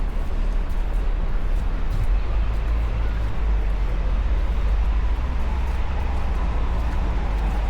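City street traffic: a steady, heavy low engine rumble from passing vehicles over a constant wash of road noise.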